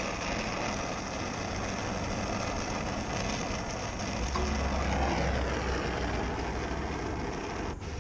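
Brazing torch flame hissing steadily as a filter drier is brazed into a refrigeration line, cutting off near the end.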